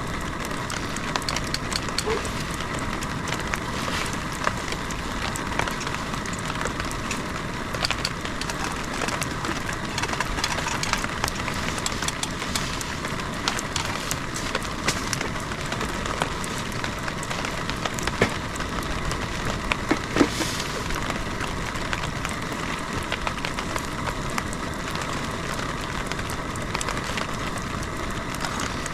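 Heavy rain falling steadily, with many sharp ticks of drops hitting a surface scattered through it.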